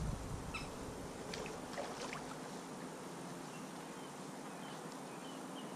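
Quiet outdoor background with a few faint clicks in the first two seconds, then a series of short, faint high chirps.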